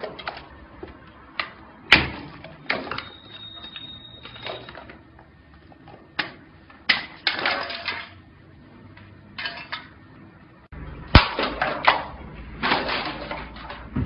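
A hammer striking iPhones, cracking their glass screens, with scattered fragments clinking. The blows are irregular, several sharp strikes a second or more apart.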